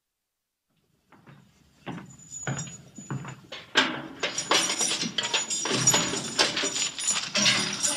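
Silence, then about a second in a rapid run of clicks and clinks begins, growing louder and denser from about four seconds in.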